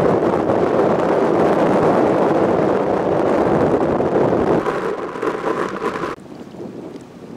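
Wind buffeting the microphone, a loud, steady rush that cuts off abruptly about six seconds in, leaving fainter wind.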